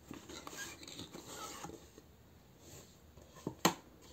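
Tarot card deck and booklet sliding out of a thin cardboard box: soft scraping and rustling of card against cardboard for the first couple of seconds, then a sharp tap about three and a half seconds in.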